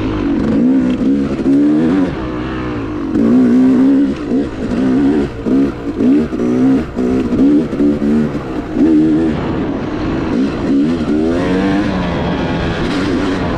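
Yamaha YZ250X two-stroke dirt bike engine revving up and dropping back again and again as the throttle is worked, the rises and falls quickest in the middle and the pitch holding steadier near the end.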